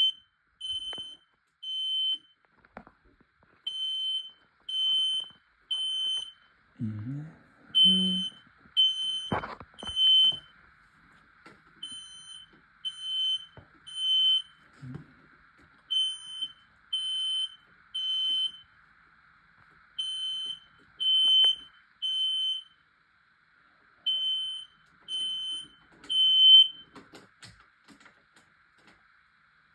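Smoke alarm sounding its evacuation pattern, one high-pitched beep repeated in groups of three with a pause between groups, set off by canned smoke-test aerosol. It runs through seven groups and then stops, silenced with its hush button.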